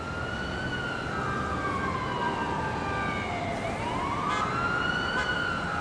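An emergency vehicle siren wailing. Its pitch falls slowly for about three and a half seconds, then rises again over the next two.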